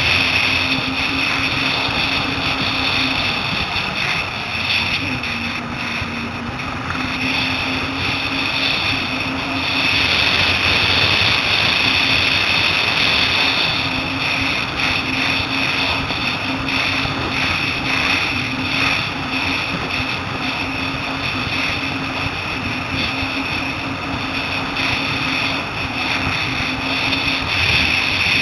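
Jet ski engine running at a steady pitch while under way, over a constant rush of water.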